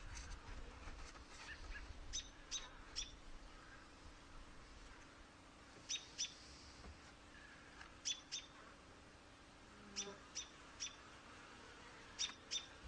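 Small bird chirping: short high chirps in clusters of two or three, repeated every couple of seconds. A low rumble fades out over the first few seconds.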